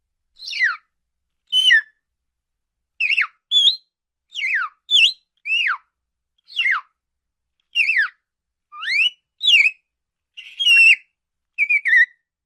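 Parakeet giving a series of short, separate whistled calls, about one a second, most sliding downward in pitch, with one call sliding upward about two-thirds of the way through.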